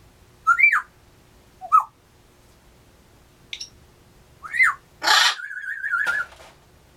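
African grey parrot calling: three short whistles that rise and fall in pitch, then about five seconds in a loud harsh burst followed by a warbling whistled trill about a second long.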